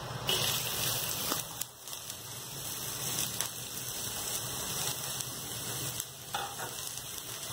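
Chopped onions sizzling in hot oil in a kadhai, a steady crackling hiss that starts as they drop in, with a few light knocks.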